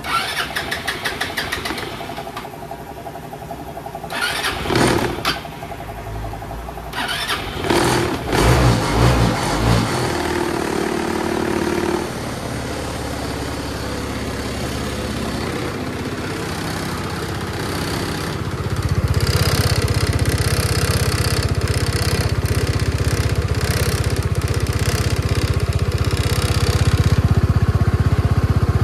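Kymco Racing S150 scooter's single-cylinder four-stroke engine being cranked and catching after a few short bursts, then running steadily. About two-thirds of the way through it runs louder, at higher revs.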